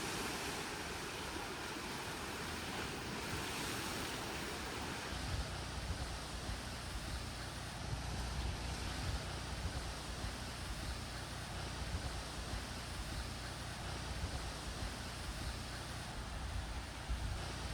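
Ocean surf washing in a steady, even rush, with wind buffeting the microphone. A low wind rumble comes in about five seconds in.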